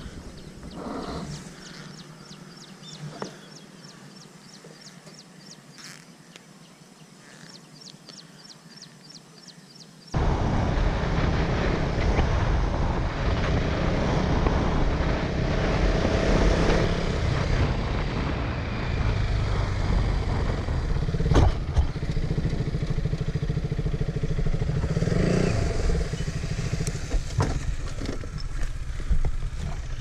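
A quiet stretch with faint, evenly spaced high ticking. About a third of the way in, a motorcycle riding at road speed cuts in abruptly: engine and steady wind noise on the helmet camera, loud from then on.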